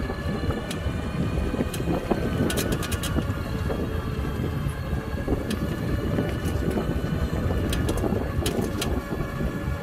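Ride in a small electric car: a steady motor whine in several tones over a continuous low road and tyre rumble. Two clusters of sharp clicks come about three seconds in and near the end.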